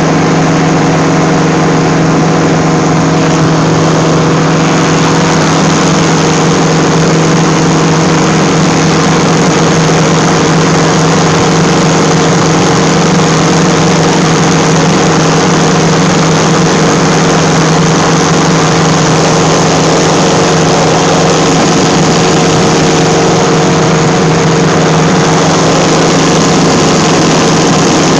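Powered parachute engine and propeller running steadily in cruise flight, a loud, unchanging drone with a rushing hiss over it.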